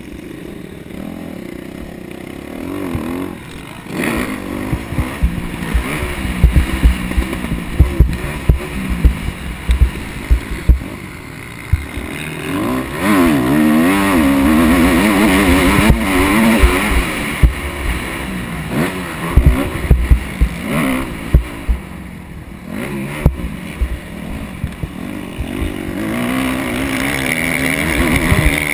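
Motocross dirt bike engine revving up and down as the rider accelerates and backs off, loudest about halfway through, with low rumble and knocks from wind and bumps on the helmet-mounted camera.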